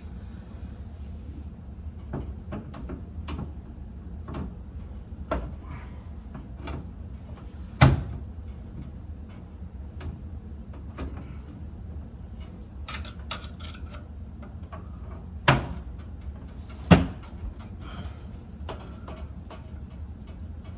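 Scattered clicks and knocks of pliers and wires being handled at an electrical panel, with three louder sharp knocks about 8, 15 and 17 seconds in, over a steady low hum.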